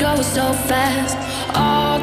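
Background music: a wavering melody over held bass notes, the bass note changing about one and a half seconds in.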